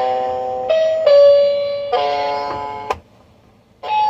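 Cheap mini electronic keyboard playing a few held notes and chords one after another, each stopping abruptly when the keys are released. A click comes about three seconds in, then a short pause, and another note sounds near the end.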